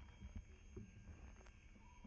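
Near silence, with a few faint soft ticks.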